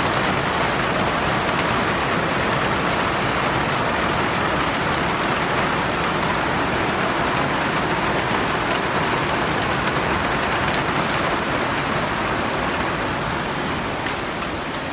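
Rain pouring down steadily on a concrete roof terrace: a loud, even hiss of falling water that neither swells nor fades.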